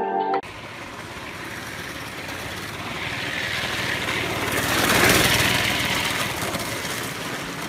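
Small engine of a motorized drift trike running, growing louder to a peak about five seconds in and then fading, as the trike passes by on the street.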